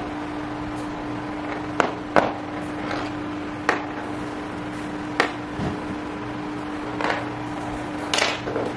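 Handling of a motor controller's cables and small plastic plug connectors on a wooden desk: about six separate sharp clicks and knocks, over a steady low hum.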